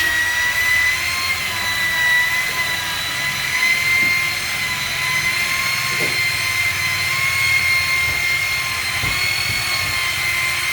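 Electric car-body polisher running steadily, its motor giving a constant high whine over a hiss as it buffs the painted panel.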